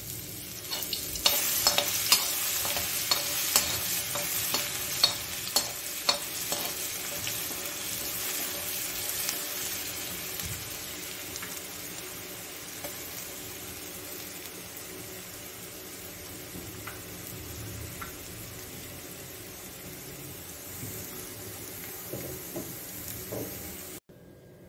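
Crushed garlic and cumin sizzling in hot oil in a metal kadhai, stirred with a long metal slotted ladle that scrapes and taps against the pan. The sizzle is loudest in the first several seconds and slowly dies down, with most of the scraping strokes in the first six seconds; the sound cuts off abruptly just before the end.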